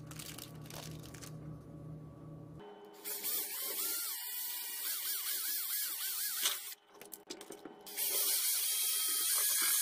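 Cordless drill boring a hole through the plywood hull of a model boat. It starts about a quarter of the way in, with its pitch wavering as the bit cuts, eases off briefly past the middle, then runs louder again near the end.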